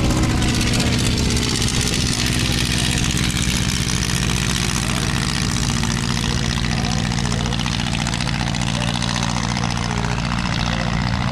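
Replica 1910 Hanriot monoplane's 35 hp Franklin radial engine running loud and steady with its propeller, through the takeoff run and lift-off, easing slightly as the aircraft draws away.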